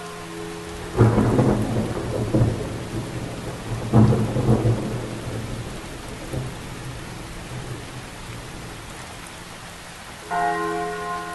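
Steady heavy rain with two thunderclaps, about one and four seconds in, each rumbling away over a few seconds. A church bell strikes once near the end and rings on.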